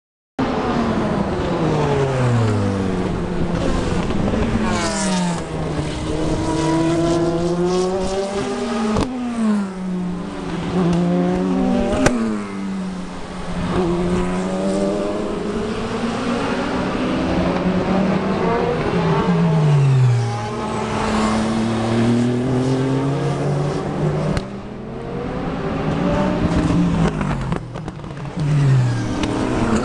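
Endurance race cars braking into a corner one after another, each engine's pitch dropping in steps as it downshifts, then climbing again as it accelerates away. The cars often overlap, and a few sharp cracks cut through.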